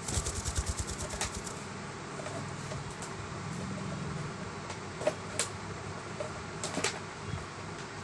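Alexandrine parakeet beating its wings hard for about a second and a half, a quick even flutter of around eight wingbeats a second. A few single sharp clicks follow later.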